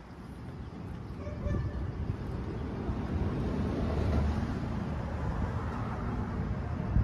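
A low rumble of distant engine noise that swells over the first few seconds and then holds steady.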